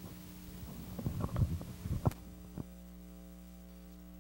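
Steady electrical mains hum through the sound system, with a few soft knocks and rustles in the first half from the handheld microphone being handled.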